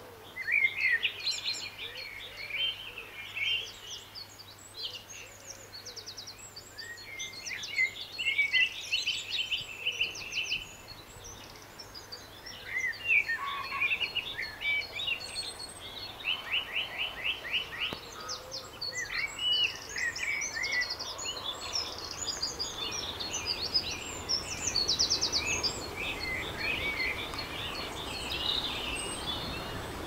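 Several woodland songbirds singing in spring, overlapping whistled phrases and fast, evenly spaced trills one after another.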